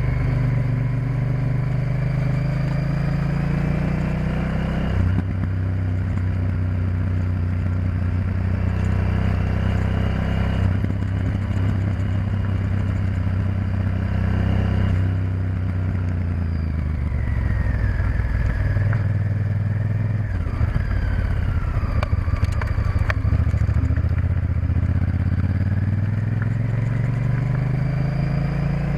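Honda Varadero XL1000's V-twin engine under way: its pitch rises over the first few seconds, steps down abruptly about five seconds in, holds steady, then falls away as the bike slows past the middle and climbs again near the end.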